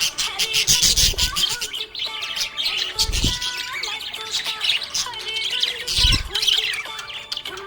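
Budgerigars chirping and warbling, a dense run of quick high chirps, with three short low thumps about one, three and six seconds in.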